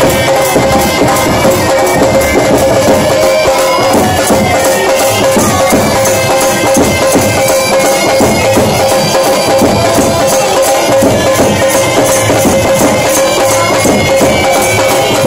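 Pipe band playing: bagpipes sounding a melody over their steady drone, with drums beating along.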